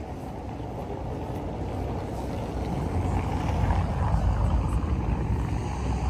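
Low rumbling noise with no clear tone, growing louder about halfway through.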